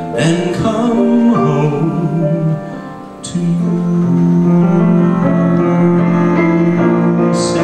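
A man singing a slow ballad into a microphone with piano accompaniment, holding one long note through the second half.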